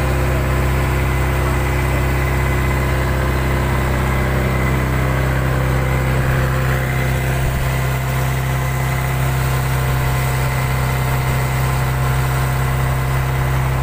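Fishing boat's inboard engine running steadily under way, a constant low hum with a steady drone of even tones.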